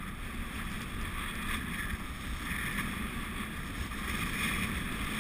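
Steady wind noise rushing over a moving action-camera microphone, with no clear separate strokes or footfalls.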